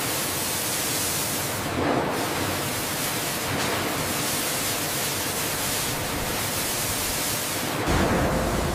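Steady hiss of water spraying from overhead nozzles, starting suddenly. About eight seconds in, a deeper, louder rushing joins it.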